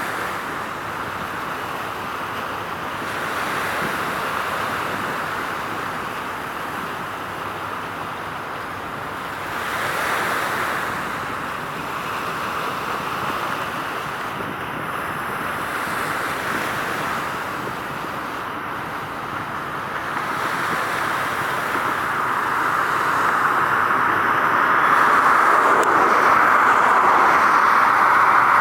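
Steady outdoor rushing noise that swells and eases every few seconds, growing louder toward the end.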